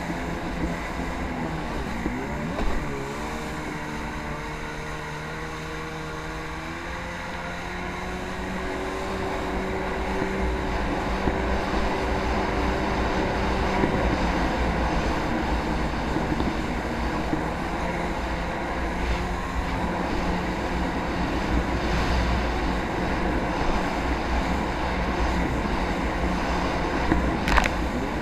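Jet ski engine running under throttle: its pitch dips and wavers, climbs steadily for a few seconds, then holds at a steady cruise. A brief sharp sound comes near the end.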